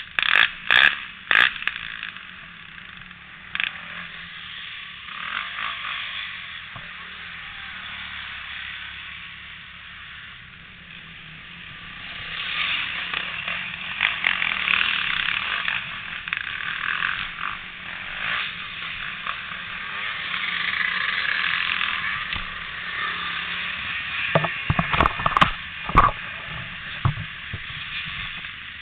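ATV engines idling with a steady, rough running sound. There are a few sharp knocks about a second in, and another cluster near the end.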